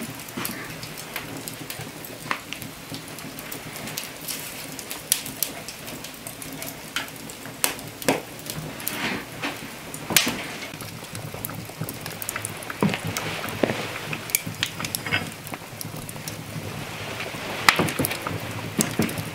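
Wood fire crackling in an open stone hearth, with irregular sharp pops.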